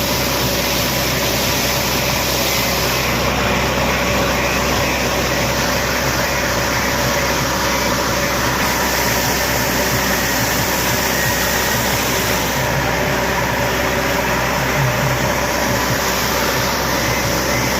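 A JCB digger's diesel engine running steadily under work, a constant dense mechanical drone with no pauses.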